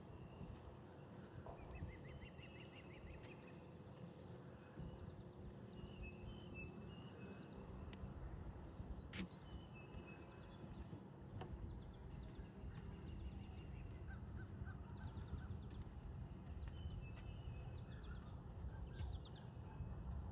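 Faint outdoor waterside ambience: scattered bird calls and chirps over a low, steady rumble, with a couple of sharp clicks near the middle.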